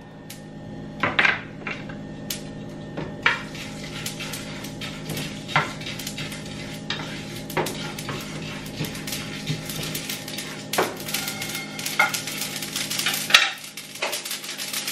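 Pumpkin seeds and sesame seeds toasting dry in a non-stick frying pan, stirred with a wooden spatula: scraping and rattling, with scattered sharp clicks and knocks of the spatula on the pan. Near the end the pan is lifted off the burner.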